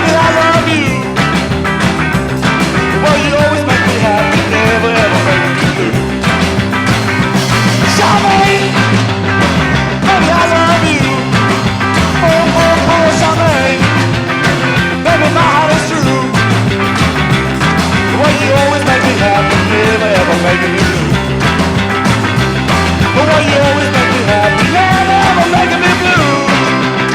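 Rock song playing loud and steady, with a singing voice coming in and out over the band.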